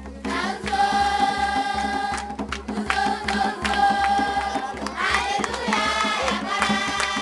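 A crowd of children and adults singing a traditional dance song together, holding long notes, with sharp hand claps throughout.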